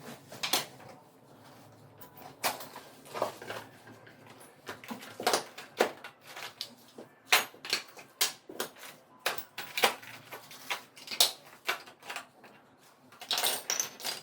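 Irregular knocks, clicks and rustles of packaging being handled and opened, about one or two sharp sounds a second, with a busier patch near the end.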